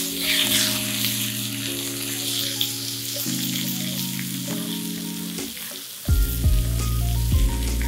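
Boneless chicken thighs sizzling in hot olive oil as they are laid into a stainless steel skillet to sear, the sizzle flaring up right at the start. Background music plays throughout, with a heavier bass beat coming in about six seconds in.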